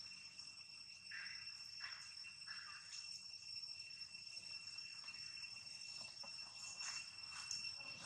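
Steady, high-pitched insect trill, with a few brief soft rustles now and then.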